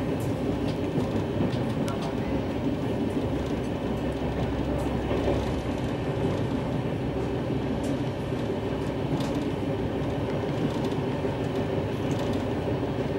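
Running noise of a train heard from inside an air-conditioned LHB double-decker chair car: a steady rumble with a few faint clicks, with a car-carrier freight train on the next track.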